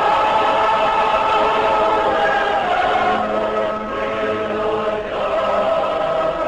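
A choir singing long held chords, the harmony shifting about three seconds in and again near five seconds.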